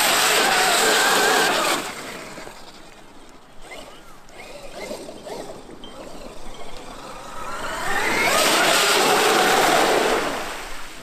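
Traxxas X-Maxx brushless electric RC monster truck driving past at speed twice, its motor whine rising and falling over a hiss, fainter and farther off in between.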